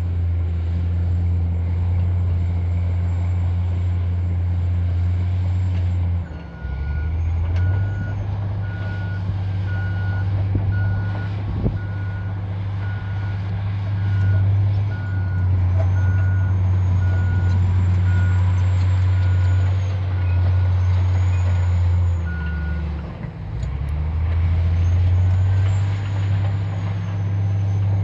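Caterpillar D10T bulldozer's C27 V12 diesel engine running hard, dipping briefly about six seconds in as the machine changes direction. A backup alarm then beeps steadily, about three beeps every two seconds, for some fifteen seconds while the dozer reverses. The engine dips again when the beeping stops and picks back up to push forward.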